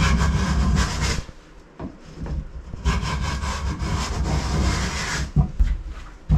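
A hand tool scraping along the edge of a mahogany plywood panel to trim it to fit, in two long spells of rasping: one of about a second, then one of over two seconds. A few sharp wooden knocks near the end as the panel is set in place.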